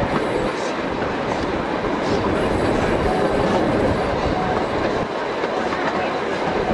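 Narrow-gauge 3 ft 6 in heritage passenger train rolling along the track, heard from an open carriage window: a steady rumble of wheels and carriages, with a few faint clicks from the rails.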